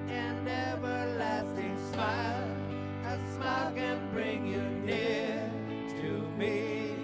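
Music: a slow ballad's introduction, a wavering lead melody over sustained chords and a steady bass.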